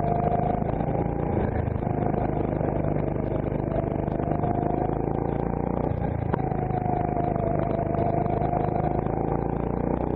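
CRG Centurion rental go-kart engine running under throttle, heard close up from on board the kart; its pitch sags and climbs as the kart goes through the bends and picks up speed. A single sharp knock about six seconds in.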